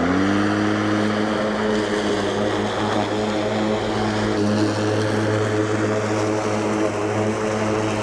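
Mowrator S1 battery-electric mower running through long grass: its motor and blade hum rises in pitch at the start, then holds steady under the noise of the cutting.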